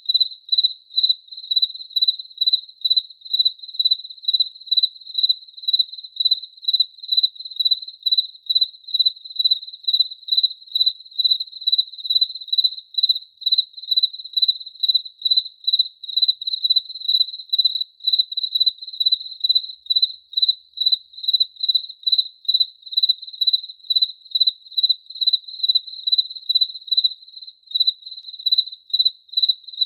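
A cricket chirping steadily, about two high-pitched chirps a second, all at the same pitch in an even rhythm.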